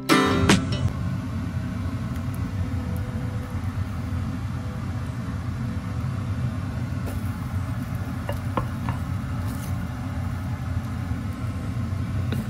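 A steady low rumble, with a few faint clicks of a utensil against a glass baking dish as cooked penne is stirred into baked feta and cherry tomatoes.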